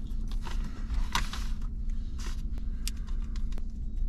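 Crinkling and rustling of a drink-mix powder stick packet being handled and torn open: a string of short crackly rustles, over a low steady rumble.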